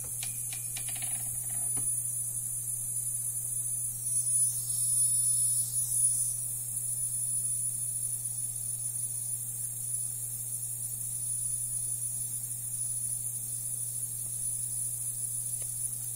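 Steady low electrical hum with a constant high-pitched whine above it. There is a brief rustling noise about four seconds in.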